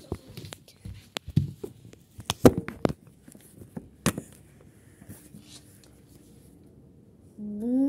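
Handling noise from a phone camera being picked up and moved: scattered knocks, clicks and rustles, the loudest knocks about two and a half and four seconds in. Near the end a person makes a brief hummed sound that rises and then falls in pitch.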